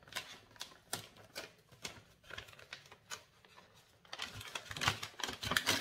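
Crinkling and clicking of small gift packaging being opened by hand. The sound is sparse at first and gets denser and louder over the last couple of seconds.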